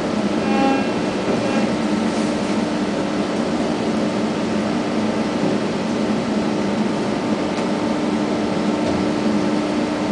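Steady drone of a ship's engines and deck machinery, an even noise with a constant low hum, with a brief higher tonal sound about half a second in.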